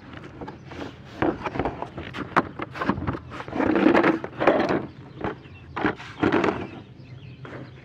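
Clicks, knocks and scraping as the plastic carrying case of a Powerbuilt Kit 43 gear puller set is handled and opened, with louder scuffing stretches about halfway through and again near the end.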